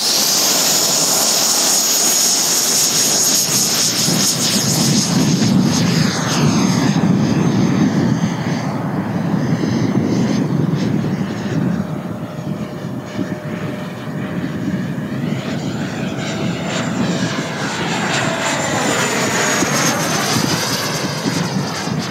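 Electric ducted-fan jet model, a 90 mm WeMoTec Midi Evo fan driven by a HET 700-68 motor, running at high power with a steady high-pitched whine over a rushing air noise. It takes off and flies past, and from a few seconds in the sound sweeps up and down in pitch as the jet moves through the air.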